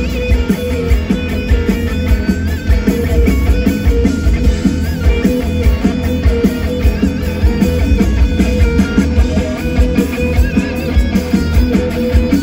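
Live pop-rock band playing an instrumental break, with a lead guitar line of bent, wavering notes over strummed guitars, bass and drums.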